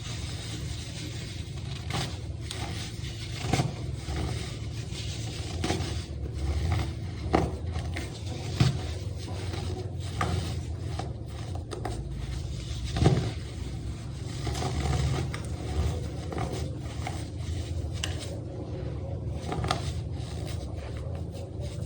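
Compressed baking soda being crushed and crumbled, a dense run of irregular crunches and scraping with a few sharper cracks along the way.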